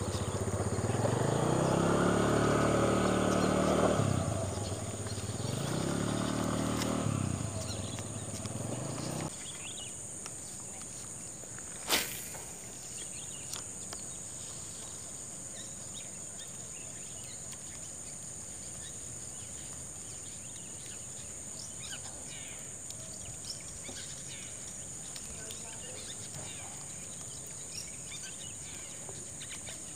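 A motorcycle engine pulling away, its pitch rising and dropping back at each gear change, fading out about nine seconds in. After that a steady high insect drone continues, with one sharp knock about twelve seconds in.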